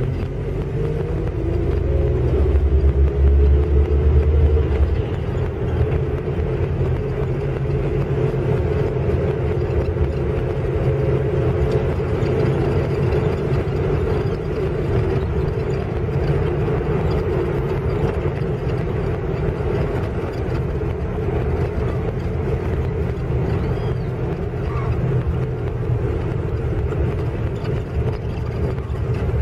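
Car driving at low speed: steady engine hum and tyre rumble on asphalt, the engine note climbing a little in the first few seconds and then holding steady.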